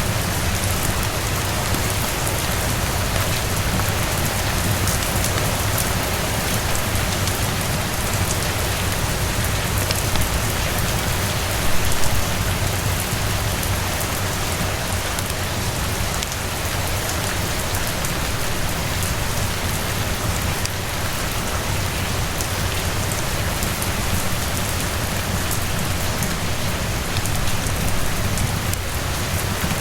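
Steady heavy rain falling and pattering on surfaces, an even wash of sound with fine scattered ticks of drops; briefly louder about twelve seconds in.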